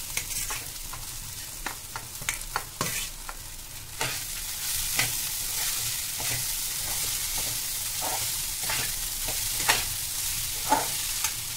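Metal spatula stirring and scraping poha (flattened rice) through fried potatoes, onions and peanuts in a steel kadhai, with repeated clinks of the spatula on the pan over the sizzle of hot oil. The sizzle becomes louder and steadier about four seconds in.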